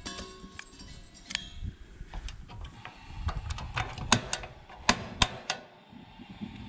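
Piezo igniter of a Char-Broil Big Easy propane smoker clicking as its control knob is pressed and turned to light the gas burner. The sharp clicks come irregularly, and the loudest fall about four to five seconds in.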